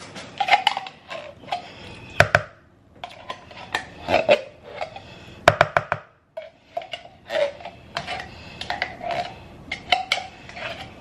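A kitchen utensil scraping and knocking against cookware, with several sharp knocks and short squeaky scrapes in between, as cans of condensed cream of chicken soup are emptied into a mixing bowl.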